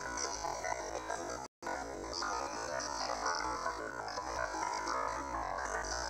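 Background music with synthesizer and keyboard sounds, briefly cutting out to silence about a second and a half in.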